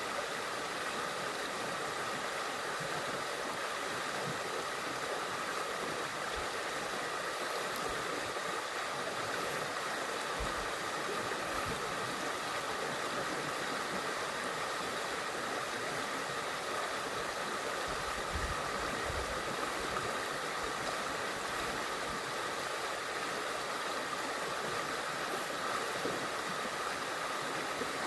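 Running water making a steady, unbroken rushing noise.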